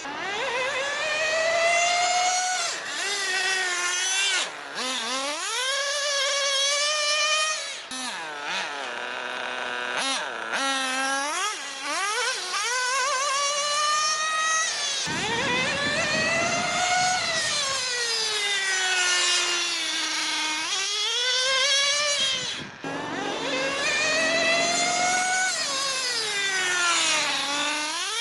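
Nitro RC car's small two-stroke glow engine being driven hard, its high-pitched note rising and falling over and over as the throttle is opened and closed.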